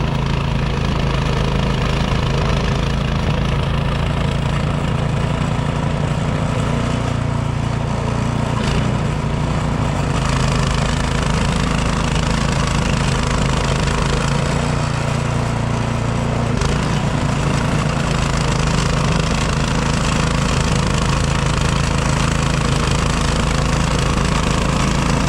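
Craftsman snowblower's small gasoline engine running steadily, with only slight changes in its note.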